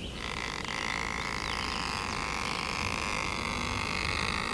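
Cornstalk fiddle bowed with a rosined bent-stick bow: the two strings cut from the green stalk's own skin give a steady, scratchy, squeaky tone with many overtones, starting a moment in and held without a break.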